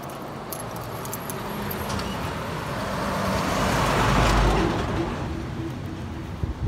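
A car passing by on the road. Its engine and tyre noise swells to a peak about four seconds in and then fades.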